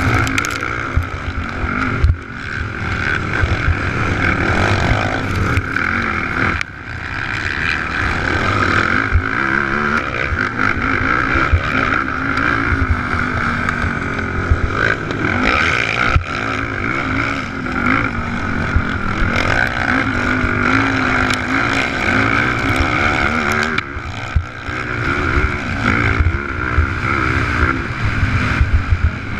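Sport quad's engine running hard under race throttle, its pitch rising and falling with the revs, with wind rushing past the mounted camera. The engine note drops off briefly about two, seven and twenty-four seconds in as the throttle is let off.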